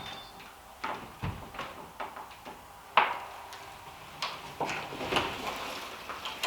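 A series of irregular knocks and clunks, about a dozen, spaced unevenly, with the sharpest about three seconds in.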